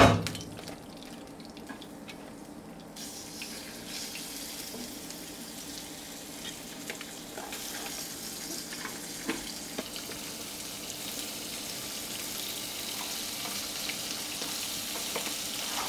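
Seasoned lobster pieces in their shells searing in olive oil in a hot pan: a knock at the very start, then a steady sizzle with scattered pops that builds gradually louder as the pan heats the shells.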